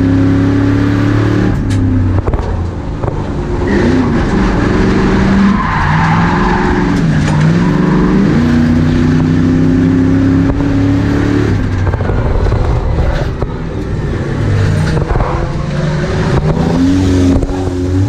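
Race car's engine heard from inside the cabin, accelerating and lifting off in turn, its pitch climbing, dropping back and climbing again several times, with a few sharp knocks and rattles from the car.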